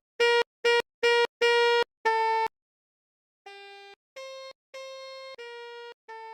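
Basuri 'telolet' melody bus horn playing a tune in clipped electronic notes: a run of five loud notes, a pause of about a second, then a quieter run of notes.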